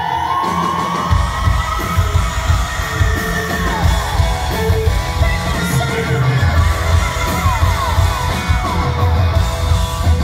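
Live rock band playing loud: electric guitar, bass and drums with a woman singing and the crowd yelling. A long rising tone at the start gives way as the full band comes in with heavy bass and drums about a second in.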